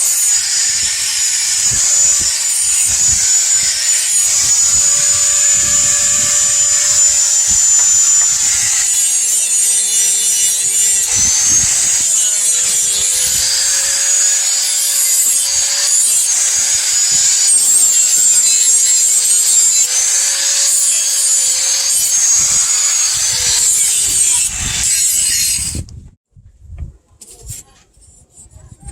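Electric grinder grinding the coil-spring steel blade: a loud grinding hiss over a steady high whine, the motor's note sagging and wavering as it is pressed into the work. It cuts off suddenly near the end.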